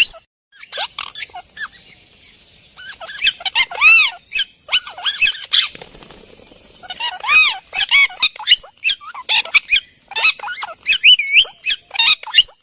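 Birds calling in rapid, repeated squawks, each call arching up and then down in pitch, coming in two busy bursts with a short lull between them.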